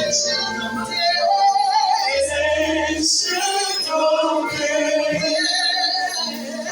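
Live church worship music: a sung melody over keyboard accompaniment with long held bass notes.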